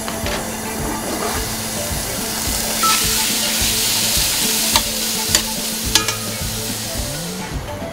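Beef chunks hitting hot oil in a large stainless steel stockpot, sizzling louder from about three seconds in as they are stirred. Metal tongs tap the pot sharply three times.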